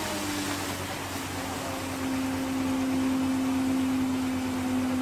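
An engine running steadily, its pitch sagging a little in the first second and then holding, over the steady rushing hiss of a high-pressure water jet spraying from a pipe.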